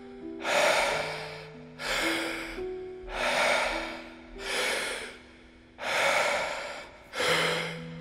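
Paced deep breathing for Wim Hof-method breathwork: three full breaths in and out, one about every two and a half seconds, heard as six evenly spaced rushes of air. Soft background music with sustained chords runs underneath.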